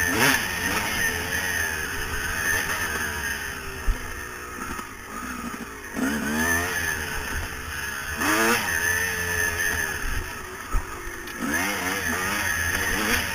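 2000 Yamaha YZ250 single-cylinder two-stroke engine revving hard under riding load, its pitch climbing and falling back about four times as the rider works the throttle. Two sharp knocks stand out, one about four seconds in and one near eleven seconds.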